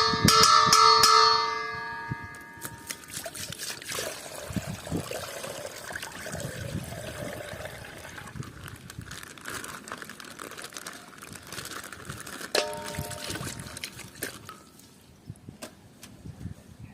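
A bell-like ding rings and fades over about two seconds. Scattered light clicks and rustling follow, and a short second tone sounds about twelve and a half seconds in.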